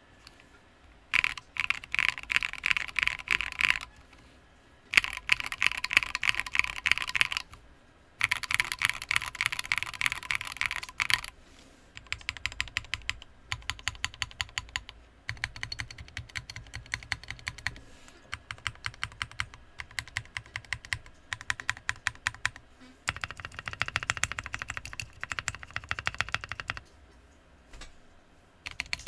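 Typing on a Sequence mechanical keyboard with lubed Poseidon switches and MT3 keycaps. It starts with three fast bursts of typing, moves to slower, evenly spaced keypresses, then has one more quick burst that stops shortly before the end.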